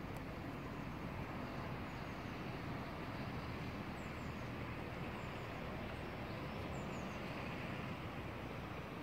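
Steady outdoor background rumble, a continuous low noise with no distinct events, with a few faint high bird chirps about four seconds in and again near seven seconds.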